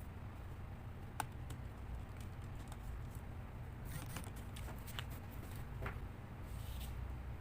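Scattered small clicks and light scrapes from handling laptop parts and tools, over a steady low hum. One sharp click comes about a second in, and a cluster of clicks follows near the middle.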